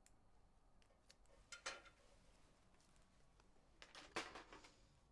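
Quiet clinks of small glass or metal items being handled, in two short clusters: one about a second and a half in and a louder one about four seconds in.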